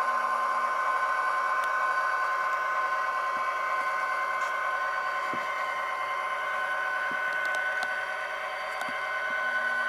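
Tsunami sound decoder in a model SD90MAC locomotive playing EMD 710 diesel engine sound through its small onboard speaker: a steady engine sound with a high whine held on two pitches. A few faint clicks come through as the model runs along the track.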